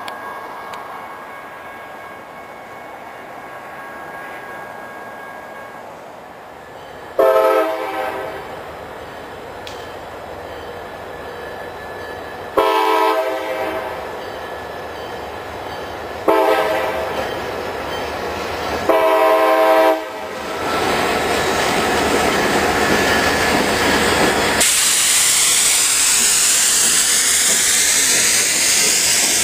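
CSX diesel freight locomotive's horn sounding four blasts for a grade crossing, the third shorter than the others. After the last blast the locomotives' engines and wheels on the rails grow loud as the lead units pass close by.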